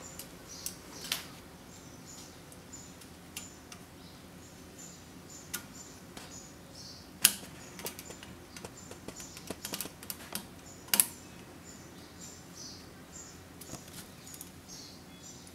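Small metallic clicks and taps as a nut is fitted and tightened with a screwdriver onto a heater rocker switch in an aluminium switch strip; the sharpest clicks come about 7 and 11 seconds in, with a run of lighter taps between them.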